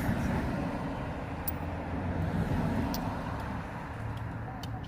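A steady low vehicle rumble with a few short, sharp metal clicks of sockets and tools being handled.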